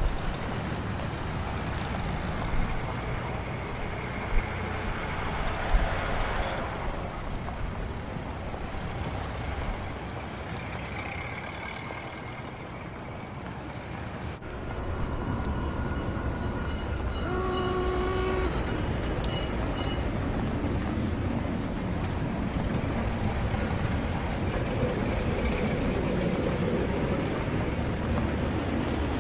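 Busy city street traffic ambience: a steady rumble of old cars and streetcars. A horn sounds briefly about seventeen seconds in.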